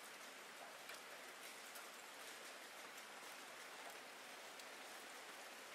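Faint, steady rain: an even hiss with scattered sharper raindrop ticks.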